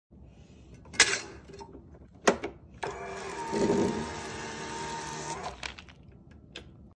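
Electric vegetable fry cutter running for about three seconds as it pushes carrots through a grid blade, a steady motor sound that swells briefly as it cuts. Two sharp clacks come before it, and a faint click near the end.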